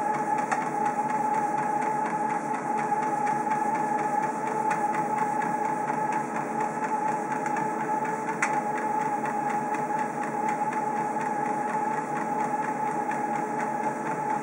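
Motorized treadmill running steadily, its motor giving a constant whine over the hum of the moving belt, with faint light ticks and one sharper click about eight seconds in.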